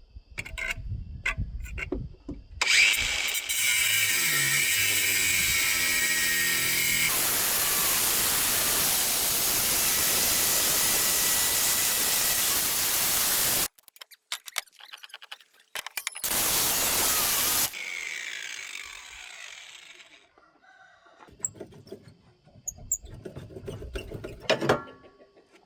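Grinder grinding the welds off a golf cart's worn rear chain sprocket: a long stretch of dense grinding lasting about ten seconds, a shorter burst after a break, then the grinder spinning down, with scattered clicks and knocks around it.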